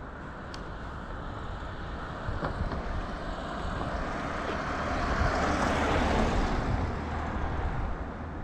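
A vehicle driving past on the street: its tyre and engine noise swells to a peak about six seconds in, then fades away.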